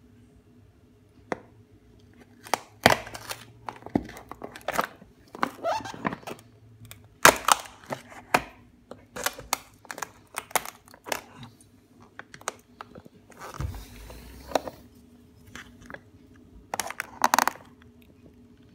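Metal pick scraping and breaking through the painted skin of a termite-hollowed timber windowsill: irregular crackles, clicks and tearing sounds as the thin paint and eaten-out wood give way.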